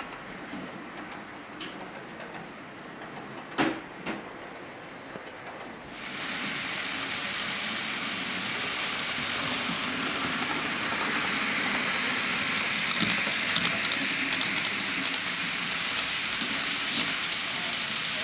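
HO scale model freight train running on the layout track: a steady hiss of small wheels rolling on the rails with rapid fine clicking, stepping up sharply and getting louder about six seconds in, after a few single clicks.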